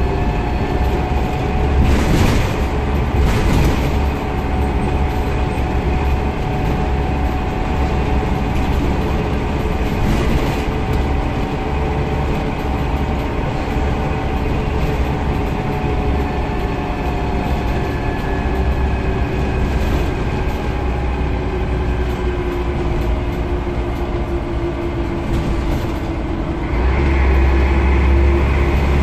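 A Scania CN94UB Omnicity single-deck bus's diesel engine running under way, heard from inside the cabin: a steady low drone whose engine note drifts slowly as speed changes, with a few sharp knocks and rattles from the bodywork in the first seconds. Near the end the engine grows louder and deeper as it pulls harder.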